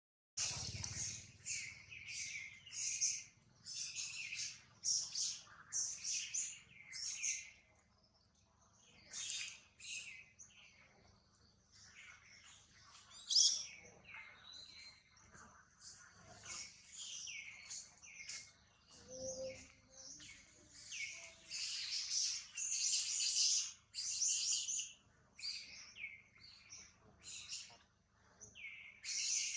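Birds chirping in rapid runs of short, high calls, thinning out for a few seconds in the first half.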